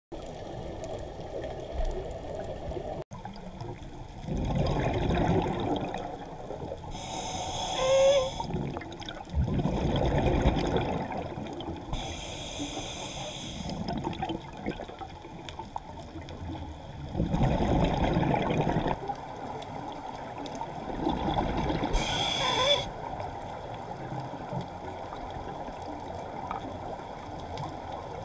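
Scuba diver's regulator breathing, recorded underwater: three hissing inhalations and, between them, several rumbling bursts of exhaled bubbles, repeating at a slow breathing pace.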